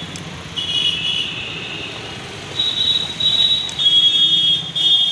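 Road traffic with a steady low rumble and repeated high-pitched horn blasts, several in a row, each about a second long.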